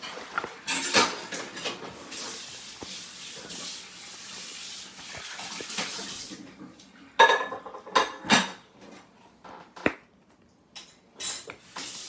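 A slime and its plastic container being handled close to the microphone: clicks and a rustling hiss for several seconds, then a few sharp knocks in the second half.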